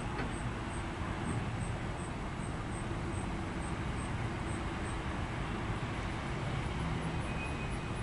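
A string of tank cars rolling slowly through the yard: a steady low rumble of wheels on rail. A faint high chirp repeats about three times a second over it and fades out about two-thirds of the way through.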